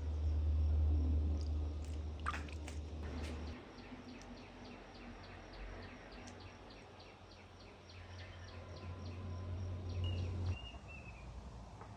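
Countryside ambience: a rapid, regular series of high ticking calls, about three or four a second, and a short bird chirp near the end, over a low rumble that cuts off about a third of the way in and again near the end.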